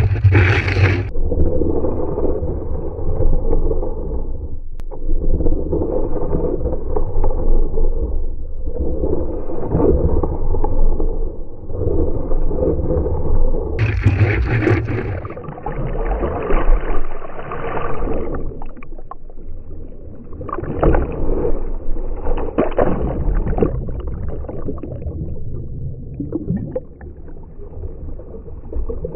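Slowed-down audio of a bar of surf wax rubbed on a surfboard deck, in swells of scraping about every two seconds. In the last third it gives way to water splashing and slapping against the board.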